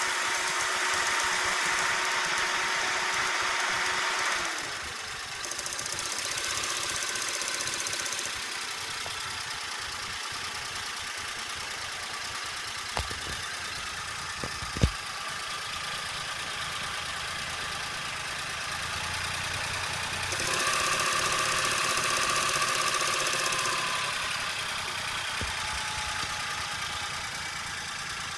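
Suzuki Cappuccino's three-cylinder engine running, its speed shifting a few times. At around 1200–1500 rpm it makes a continuous rolling rattle, a 'koro-koro-koro' sound, from the left side of the engine as faced, whose cause is unknown. Two sharp clicks come about halfway through.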